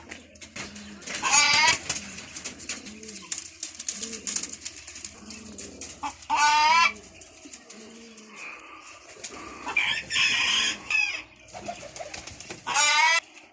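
Domestic pigeons cooing in a low, repeating series, with four loud, short chicken calls over them: about a second in, at about six seconds, around ten seconds and near the end.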